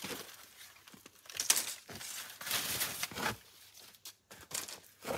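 Irregular rustling and crinkling, with a sharper crackle about one and a half seconds in and a longer spell of rustling around the middle.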